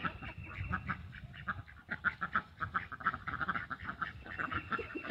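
A group of domestic ducks quacking, a steady run of short quacks several a second.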